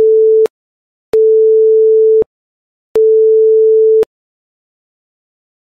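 Electronic beeps: a steady, pure mid-pitched tone that sounds three times, each about a second long, the first ending about half a second in.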